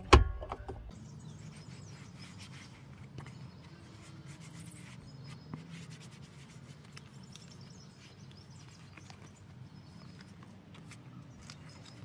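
A sharp knock right at the start, then a cloth wipe rubbing softly over a plastic steering column shroud, wiping off dust.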